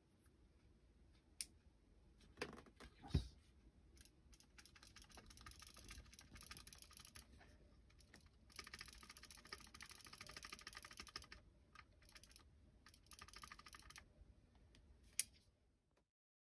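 HK416-style airsoft electric gun with a long two-finger trigger being worked by hand: a few sharp single clicks, and three bursts of rapid mechanical clicking each a couple of seconds long as the trigger is held and the mechanism cycles.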